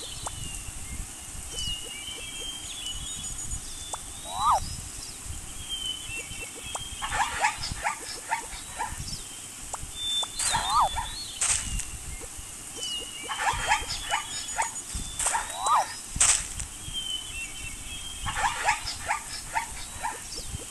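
Looped nature sound effect: high bird chirps and short rising whistles, with a cluster of quick animal calls twice, over a steady low rumble. The same sequence repeats after about eleven seconds.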